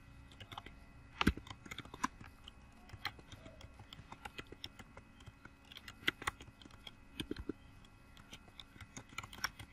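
Typing on a computer keyboard: a run of quiet, irregular key clicks, with a few louder strokes.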